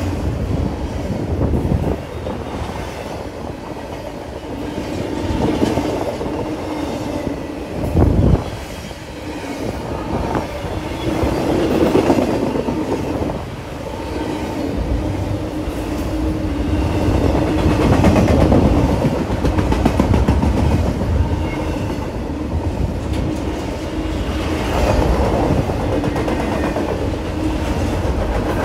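BNSF double-stack container train's well cars rolling past, wheels clacking over the rail joints in a steady rumble, with a loud thump about eight seconds in.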